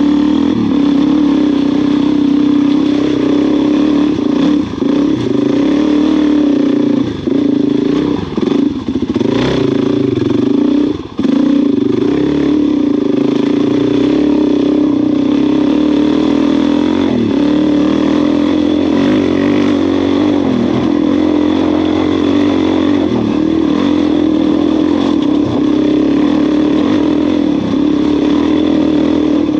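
Suzuki DR-Z400 single-cylinder four-stroke dirt-bike engine running under load on a dirt track, the throttle closed briefly several times in the first third before it settles into steady running.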